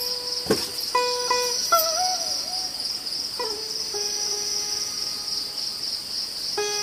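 Crickets chirping in a steady, high-pitched chorus, with sparse plucked-string background music notes over it and one sharp click about half a second in.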